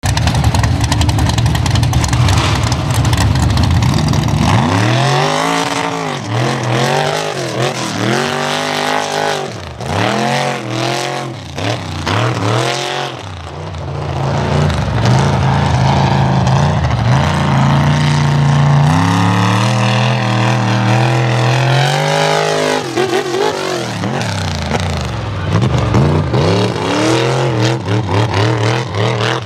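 Mud Stick mega truck's engine revving up and down over and over, with a steadier high-revving stretch in the middle. A low steady rumble comes before the revving starts about four seconds in.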